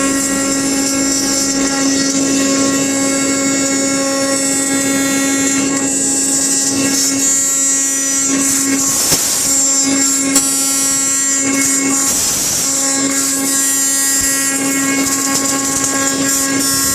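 A self-built indexable-insert router cutter on a 4.5 kW CNC spindle turning at 16,500 rpm, milling a pocket into pine. It is a loud, steady hum with a high whine above it. Twice around the middle the steady tone briefly gives way to a rougher, noisier cutting sound.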